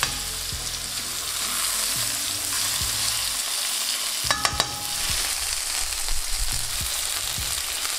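Spice-marinated chicken breasts sizzling steadily in hot oil in a non-stick pan, with a few light metallic clinks about four and a half seconds in.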